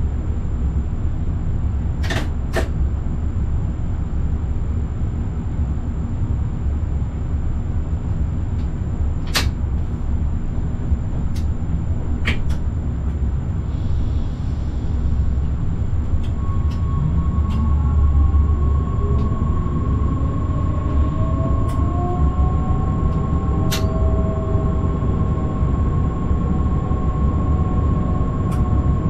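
Forchbahn electric train running, heard from the driver's cab: a steady low rumble with a few sharp clicks. About halfway through a steady high whine sets in, joined by several gliding, rising tones from the electric drive.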